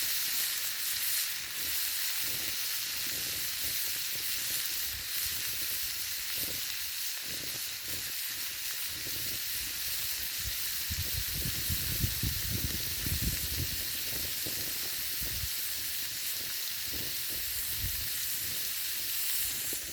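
Frozen corn sizzling and frying over campfire coals, a steady hiss. Low rumbling comes and goes about halfway through and again near the end.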